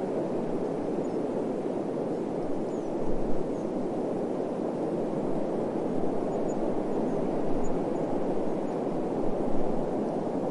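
Desert wind blowing in a steady rushing hiss, with a few brief low gusts buffeting the microphone.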